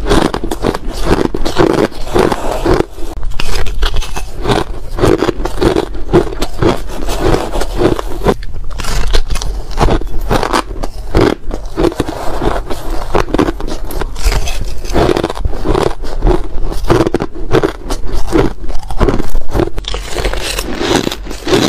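Ice being bitten and crunched close to the microphone, a rapid run of crisp squeaky crunches and crackles, with a spoon scraping through the ice in the bowl.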